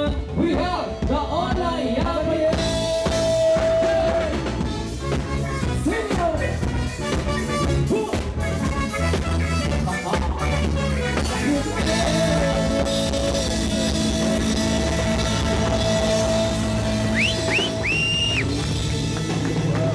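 Rock-style music with drums and long held melody notes.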